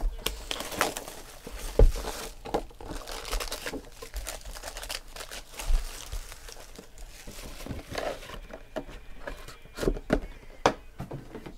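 Foil-wrapped Panini Prizm Football card packs crinkling as they are handled and stacked, with frequent light knocks as packs are set down and a louder knock about two seconds in.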